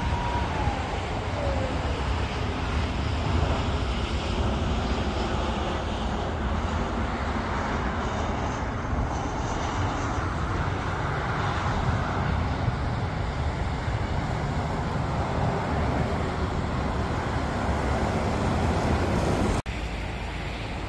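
Jet roar of a Boeing 737-800's twin CFM56-7B turbofan engines on final approach to landing: a steady rumble that swells as the airliner passes close by around the middle. A short falling whistle comes near the start, and the sound cuts off abruptly near the end to a quieter background.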